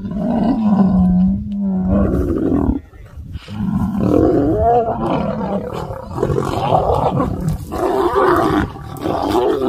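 Male lions fighting over territory, roaring loudly and almost without a break as two of them pin a rival to the ground. The roars rise and fall in pitch, with a brief lull about three seconds in.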